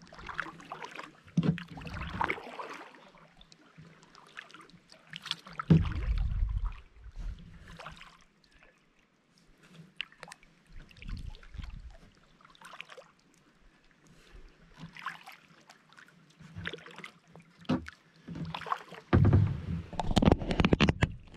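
Kayak paddling: the paddle blade dipping and splashing at irregular intervals, with water dripping and a few dull low thumps, loudest near the end.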